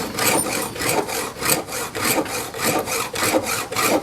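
Chainsaw file rasping across a chain cutter tooth in quick, even back-and-forth strokes, several a second, as the tooth is sharpened by hand.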